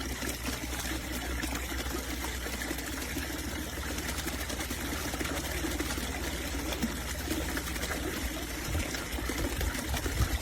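Water trickling and splashing from a small submersible fountain pump running in a water trough, with a low steady hum underneath.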